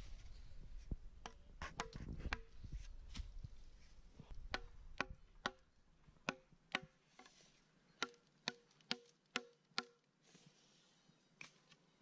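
A sharpened bamboo digging pole jabbed again and again into the soil, making a run of sharp knocks, about two a second, each with a brief ringing tone. The knocks stop about ten seconds in.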